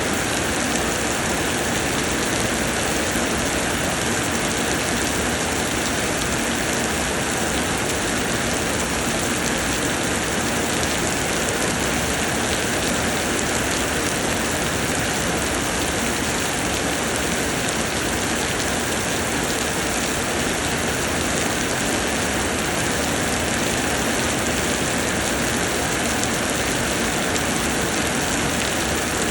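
Steady heavy rain pouring down on a garden plot, an even dense hiss of rain on surfaces with no letup.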